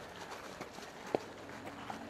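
Faint sounds of wolves moving about on the ground, with a single sharp click just past a second in.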